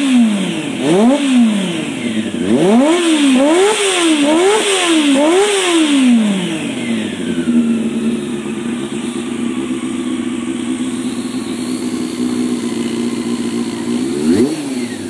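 Honda CB400 Super Four (NC31) inline-four engine, breathing through a Striker full exhaust with an aftermarket universal silencer, free-revved in a quick run of throttle blips for about six seconds. It then settles to a steady idle, and is blipped twice more near the end.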